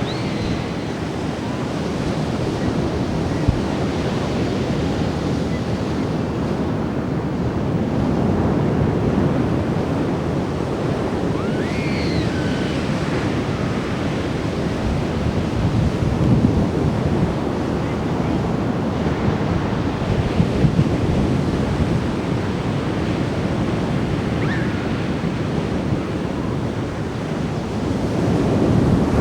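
Atlantic surf breaking and washing up a beach in steady, overlapping waves, with wind buffeting the microphone.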